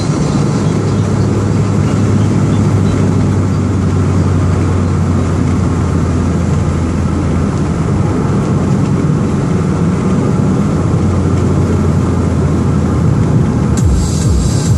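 Interior of a Perodua Axia hatchback cruising at a steady speed: a constant low engine drone with tyre and road noise.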